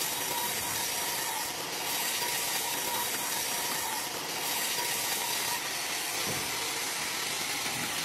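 Wood-Mizer WM4500 industrial band sawmill cutting along a log, its band blade making a steady hiss with a faint whine.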